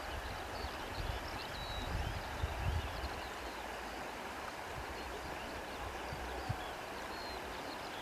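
Wind blowing through grass: a steady rustling hiss, with low gusts buffeting the microphone during the first three seconds.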